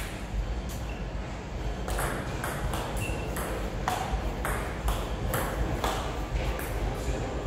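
Table tennis rally: the ball clicking off the bats and the table in a quick back-and-forth, about two hits a second, with a sharp hit at the start.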